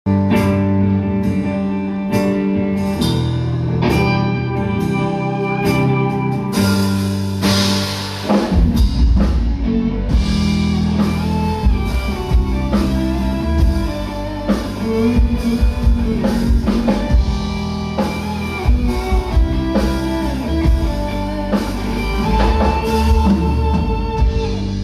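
Live band playing an instrumental song intro: a run of plucked guitar notes, then a cymbal swell and the full band with drums and bass coming in about eight seconds in.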